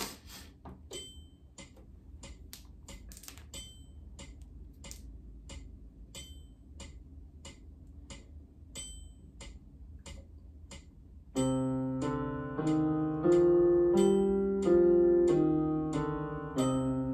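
Light clicking ticks, about two or three a second. About eleven seconds in, an electronic keyboard comes in loudly with a slow line of sustained notes in time with the ticks.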